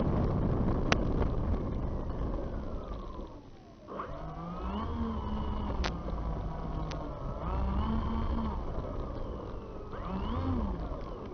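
Onboard sound of an RC P-38 model's twin motors and propellers. The first few seconds are rushing wind noise with the motor whine falling away. The motors then throttle up in repeated surges, each rising in pitch, holding briefly and dropping. A few sharp clicks are heard along the way.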